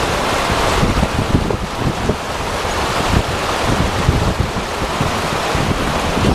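Floodwater rushing through a street in a steady, loud roar, with wind buffeting the microphone in irregular low thumps.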